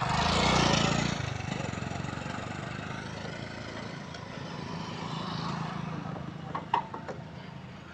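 TVS Apache RTR 160's single-cylinder 159.7cc engine idling in neutral through a modified silencer, swelling louder briefly about half a second in and then running steadily. A few sharp clicks come near the end.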